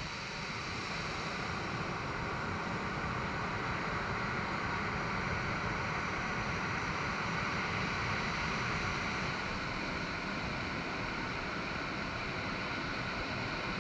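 Surf breaking on a sandy beach: a steady, even wash of wave noise.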